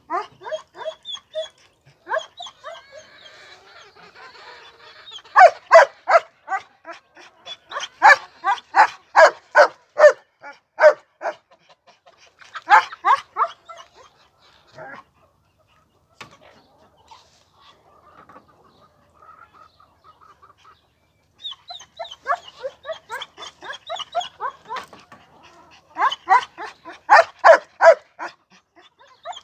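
Animal calls: bouts of short, harsh calls repeated rapidly, several a second, loud in runs with a quieter stretch in the middle.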